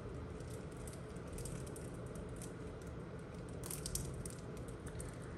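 Faint sliding and light ticks of a stack of Topps Chrome baseball cards being handled in the fingers, with a slightly sharper tick about four seconds in, over a low steady room hum.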